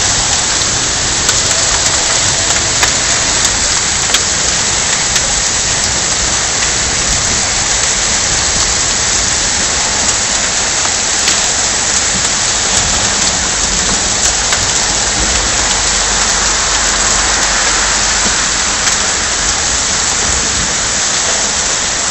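Heavy rain pouring down onto a paved street, a steady dense hiss with scattered sharper ticks of drops.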